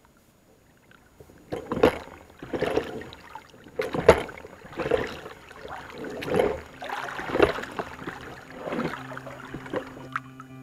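Oars rowing a small boat: the blades dip and pull through the water in a run of splashing strokes, about one a second, starting after a short quiet moment.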